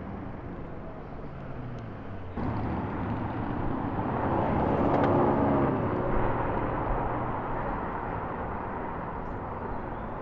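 A car engine's note rising to its loudest about halfway through and then easing off, as a car drives by in street traffic. There is an abrupt change in the sound a little over two seconds in.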